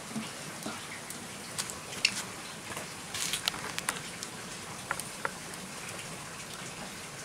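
Open wood fire crackling: scattered sharp snaps and pops over a steady hiss, the loudest snap about two seconds in and a quick run of them around three to four seconds in.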